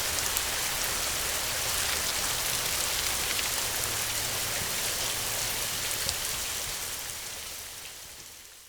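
Steady rain falling on a surface, a dense hiss with fine patter of drops, fading out near the end.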